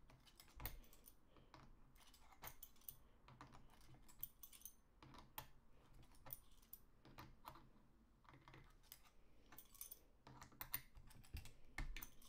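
Adjustable spanner working on an air rifle's action: faint, irregular small metal clicks and taps as it is fitted and turned.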